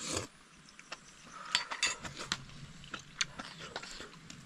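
Eating noises: chewing with scattered sharp clicks and taps of a spoon against a dish, the clicks bunched in the middle of the stretch.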